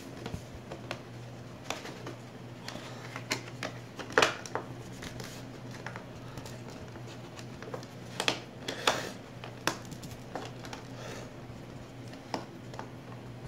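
Hands handling a plastic DVD case: irregular clicks, taps and rustles, the loudest about 4 s in and again around 8 to 9 s, over a steady low hum.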